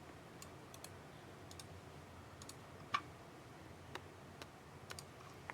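Faint, scattered clicks of a computer keyboard and mouse, irregular, with one sharper click about three seconds in.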